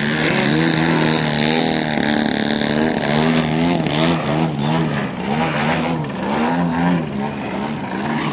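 Engine of a radio-controlled aerobatic model airplane, its pitch rising and falling over and over as the throttle is pumped during low manoeuvres.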